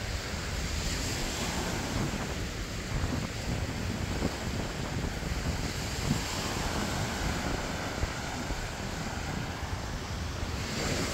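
Small surf washing onto a sandy beach, with wind buffeting the microphone in a steady low rumble.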